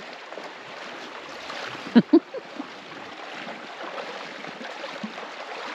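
River water flowing steadily around a drifting raft, with no motor running. Two sharp knocks come close together about two seconds in.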